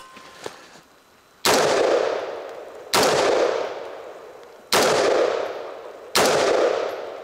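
Live Free Armory AR-15 rifle fired four times in slow, aimed single shots about one and a half seconds apart, each with a long echoing tail. These are sighting-in shots while the optic is being zeroed.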